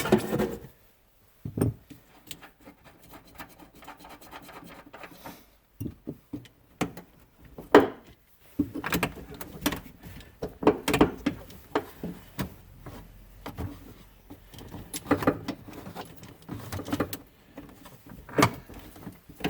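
Clinks, rattles and knocks of metal battery cables and hardware being wiggled and worked by hand in a tight space, with one sharper knock about eight seconds in.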